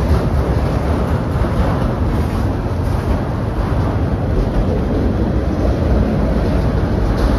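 Freight train cars rolling past: a steady noise of steel wheels running on the rails.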